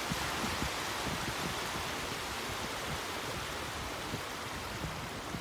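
Steady wash of small waves breaking and running up a sandy shore, with wind buffeting the microphone.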